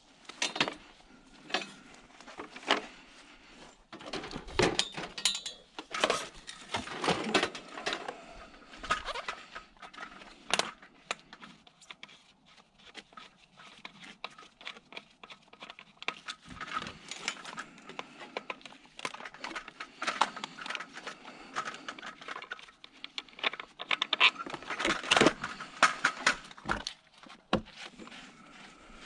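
Discarded electric fans being picked up and handled: irregular knocks, clatter and rustling, in two busy spells, one in the first third and one near the end, with a quieter stretch between.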